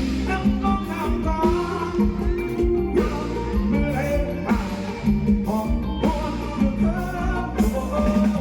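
Live band music: a melody line over a steady bass and drum beat, with no lyrics made out.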